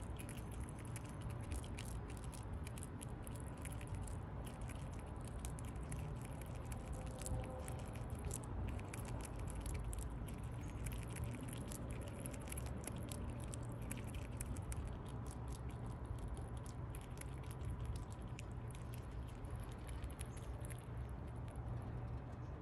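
Fox squirrel gnawing and chewing a nut held in its paws: rapid, irregular little crunching clicks that thin out near the end, over a low steady hum.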